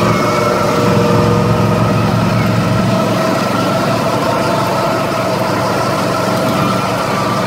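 Go-kart engines running steadily while driving around the track, heard from on board a kart: a constant engine drone with a few held tones and no breaks.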